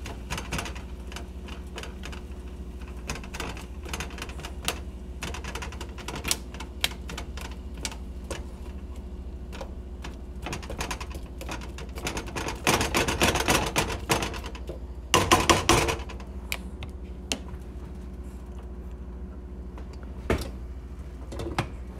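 Sliced onions and garlic sautéing in oil in a frying pan: an irregular crackle of small pops, with louder clusters about 13 and 15 seconds in, over a steady low hum.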